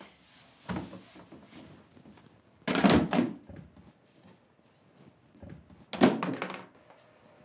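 Toys dropped into a cardboard box, making hollow thuds: a small one just under a second in, the loudest about three seconds in, and a clatter of several quick knocks about six seconds in.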